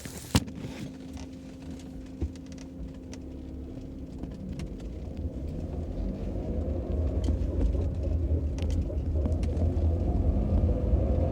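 Mercedes-Benz W124 on the move and picking up speed, its low drivetrain and road rumble growing steadily louder, with a drone that the owner puts down to the rear differential. A short click comes about half a second in.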